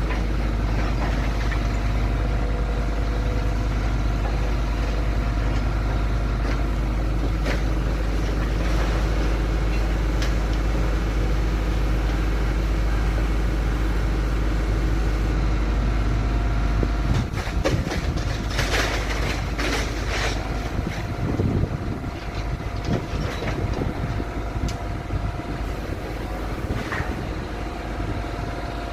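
Heavy engine running steadily with a low rumble that drops away about seventeen seconds in, followed by a few seconds of knocks and clatter.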